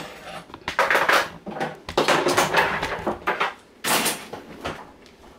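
Rustling and bumping handling noise from a phone camera being picked up and carried, in several rough stretches that die away near the end.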